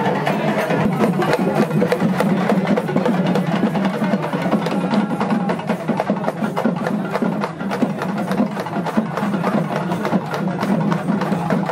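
Fast procession drumming: dense, rapid drum strokes played without a break over a steady low hum.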